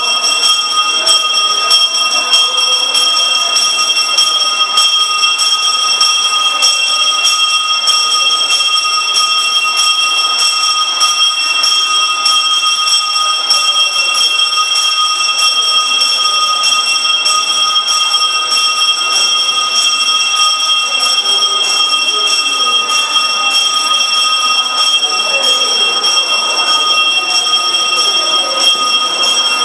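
Bells ringing on and on without a pause, their bright ringing tones held steady throughout, with a low murmur of voices beneath.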